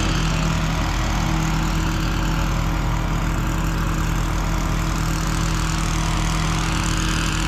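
An engine running steadily at a constant speed, a continuous even drone with a fixed low hum.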